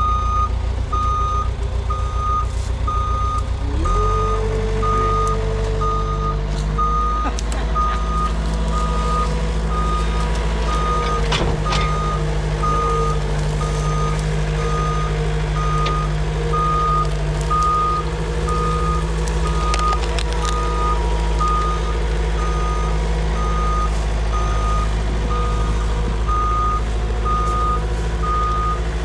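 A Cat skid steer's backup alarm beeping steadily about once a second while it reverses, over its engine, which revs up about four seconds in and then holds under load as it works the stuck truck out.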